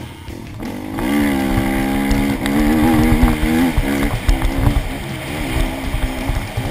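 Motocross dirt bike engine revving hard. It climbs in pitch about a second in, holds high, then drops and picks up again as the throttle is worked, with rumbling wind and bump noise on the bike-mounted camera.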